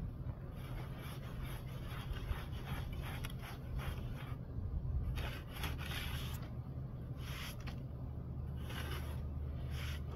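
Hand trowel scraping and rubbing wet acrylic stucco finish coat, a run of irregular scraping strokes.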